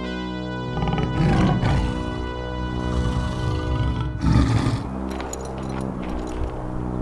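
Background music with a big-cat roar sound effect laid over it, heard twice: about a second in and again just after four seconds.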